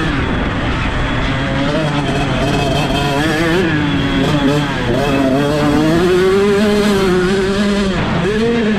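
A 125cc two-stroke motocross bike's engine under hard throttle, heard from on board, its pitch climbing and falling again and again as the rider works the throttle through the gears, with a sharp dip about eight seconds in. Wind rushes over the microphone.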